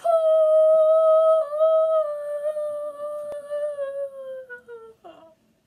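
A young woman's voice holding one long, drawn-out call through hands cupped around her mouth. The note stays level and then sags slightly in pitch before it breaks off about five seconds in, followed by a short final syllable.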